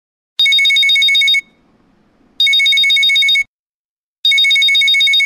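Mobile phone ringing with an old-style telephone-bell ringtone: three rings of about a second each, each a fast high trill, about two seconds apart.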